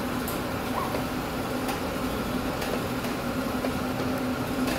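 Steady low mechanical hum with a haze of room noise, broken by a few faint clicks.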